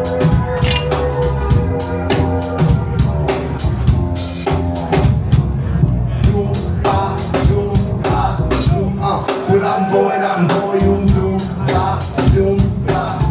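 A rock band playing live in an instrumental passage between vocal lines: a drum kit keeps a busy, steady beat over bass and held keyboard-like tones. The deep bass drops out for about a second two-thirds of the way through, then comes back.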